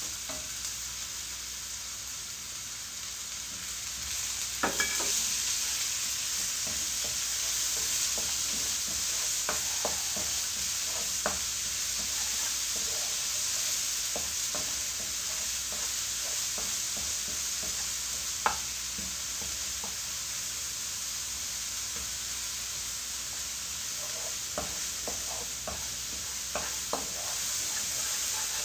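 Chopped onion frying in ghee with garlic in a wok, a steady sizzle. A wooden spoon stirs and scrapes it, with short taps against the pan now and then.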